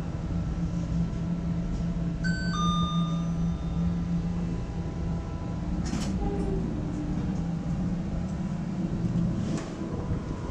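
Ship's passenger lift: a steady low machinery hum in the car, then a two-tone falling ding-dong arrival chime about two seconds in. A sharp clunk follows about six seconds in and a fainter one near the end.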